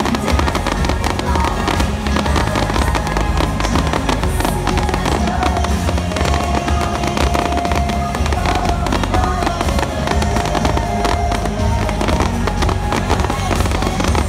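Fireworks going off in rapid succession, many pops and crackles one after another, with music playing over them.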